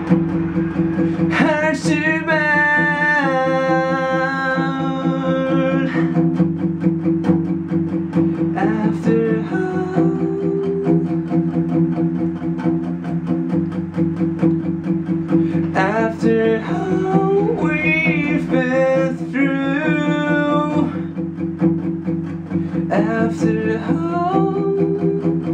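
A man singing with his own acoustic guitar: the guitar plays on steadily while the voice comes in phrases, with pauses between them.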